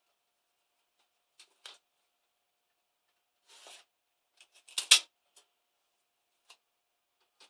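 Adhesive tape pulled briefly off its roll with a short rasp, then cut: a quick cluster of sharp snips and clicks about five seconds in, the loudest moment, with a few lighter clicks and taps around it.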